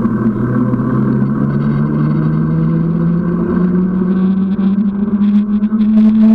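A motor vehicle engine running in road traffic, its pitch climbing slowly and steadily as it gathers speed.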